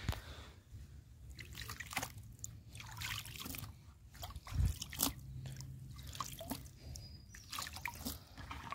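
Water splashing and dripping from a cupped hand into a plastic bucket of dry fishing groundbait, in irregular spatters, as the mix is wetted to make bait balls.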